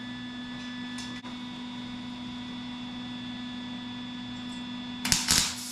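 Steady electrical hum, then about five seconds in an arc welder strikes and the arc crackles loudly.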